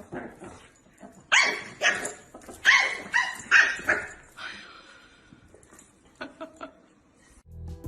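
A dog barking: about six sharp barks in quick succession in the first half, then a few faint clicks. Music starts right at the end.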